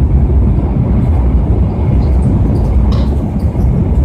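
Shinkansen train running, heard from inside the passenger car: a steady low rumble from the running gear and track, as the train moves at reduced speed after its stop.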